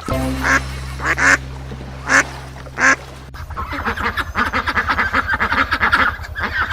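Ducks quacking: four separate quacks in the first three seconds, then a fast, continuous run of quacking chatter.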